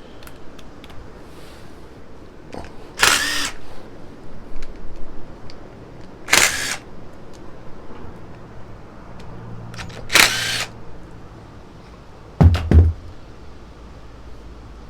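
A ratchet wrench loosening the three starter-motor bolts on a Raptor 250 engine, clicking in three short bursts a few seconds apart, with lighter tool clicks between. Near the end come two sharp knocks in quick succession.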